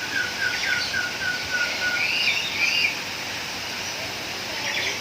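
Several birds calling: one gives a rapid run of short, slightly falling notes that slows and stops about two seconds in, while others add chirps and warbled phrases.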